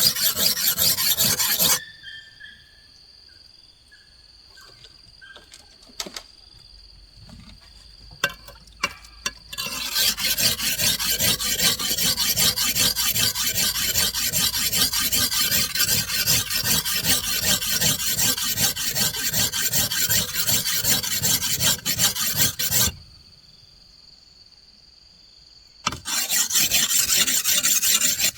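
A hand tool rasping across wood in rapid repeated strokes, in three long spells broken by pauses of a few seconds.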